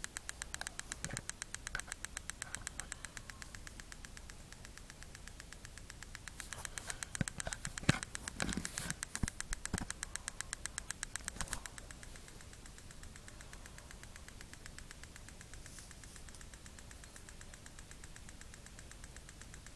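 Strobe light ticking with each flash, an even, rapid clicking several times a second. Some louder knocks and handling noise come in the middle, and the clicking stops about two-thirds of the way through, leaving a faint hiss.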